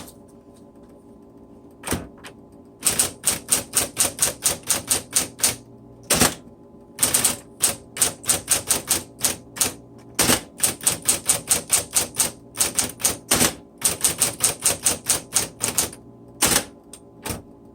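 Smith Corona Electra 220 electric typewriter being typed on: runs of quick, sharp key strikes, about four or five a second, broken by short pauses, with a few single strikes near the start and end. The motor hums steadily underneath.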